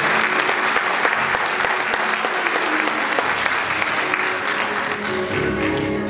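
Audience applause, a dense patter of many hands clapping, over background music; the clapping dies down near the end as the music comes back up.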